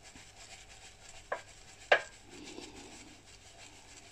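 Faint repeated scratchy rubbing of a soapy natural-bristle paintbrush worked in circles against a palm, pushing the soap lather down into the base of the bristles. Two sharp clicks come about a second and two seconds in.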